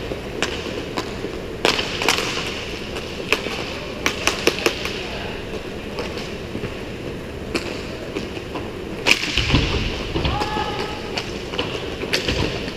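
Inline roller hockey play on a plastic sport-court floor: the steady rolling of inline skate wheels, broken by sharp clacks of hockey sticks, with a louder knock about nine seconds in.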